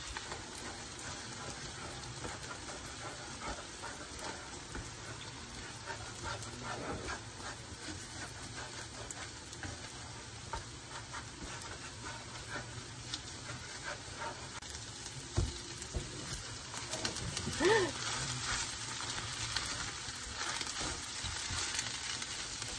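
Beaten egg and shrimp fried rice sizzling in a hot frying pan, with a spatula scraping and stirring through the scrambling egg and rice in a run of small clicks and scrapes. About three-quarters of the way through comes a brief whine-like voice sound, the loudest moment.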